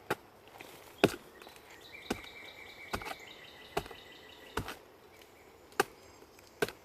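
Steady chopping into a tree trunk to fell it: about eight sharp strokes, a little under a second apart.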